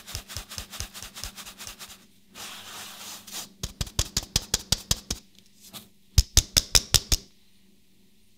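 Flour sieve being tapped to sift flour into a bowl: quick, even taps, about six a second, in three runs, with a brief soft hiss between the first two runs. The last run is the loudest, and the tapping stops about seven seconds in.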